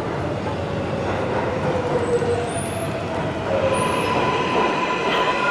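Subway train in an underground station: a steady rumble with gliding wheel squeals, then several steady high squealing tones coming in about four seconds in and growing louder.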